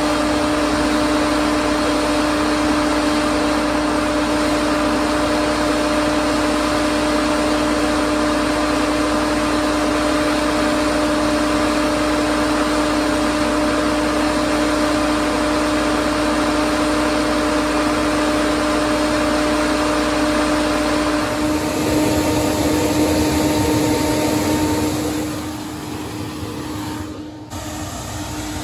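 Old propane-fired batch grain dryer running, its big fan giving a steady noise with a constant hum. The sound shifts a few seconds before the end and gets quieter.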